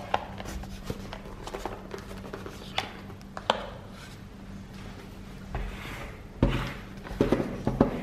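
Cardboard tablet packaging handled by hand as it is opened: light taps, clicks and rustling of card and paper, with a dull thump about six and a half seconds in and a cluster of taps near the end.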